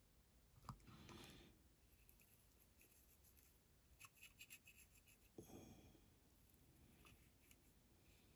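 Near silence with faint light scratching and clicking from a paintbrush working enamel paint onto a small diecast model, including a brief run of quick light strokes about halfway through.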